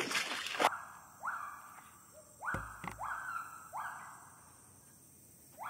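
Gibbons singing: a run of rising, whooping notes, each sweeping upward and then levelling off, several in a row with short gaps between. A brief burst of rustling noise comes at the very start.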